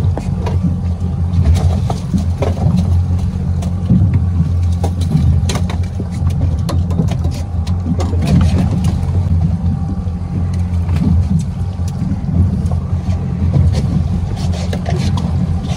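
Small kicker outboard motor running steadily at trolling speed, a constant low drone with a few short clicks over it.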